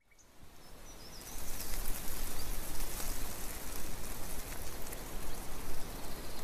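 Steady rain falling, fading in from silence over the first second or so, with a few faint high chirps above it.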